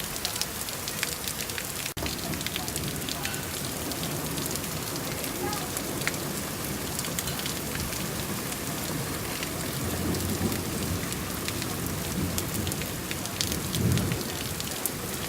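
Heavy rain pelting down, a steady hiss made of many separate drop hits. Low rumbles swell up twice in the latter part.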